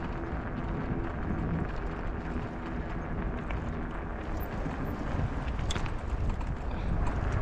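Steady wind rumble on a bicycle-mounted microphone, mixed with the rolling noise of a bicycle ridden along a paved path, and a few faint clicks.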